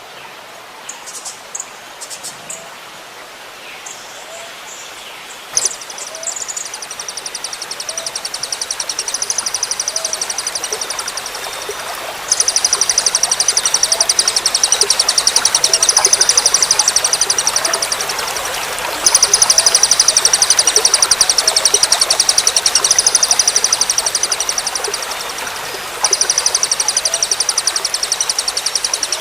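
Trickling water with a songbird's long, very rapid, high-pitched trills ('tembakan' bursts) that begin about five seconds in and run for several seconds at a time, breaking off briefly three times.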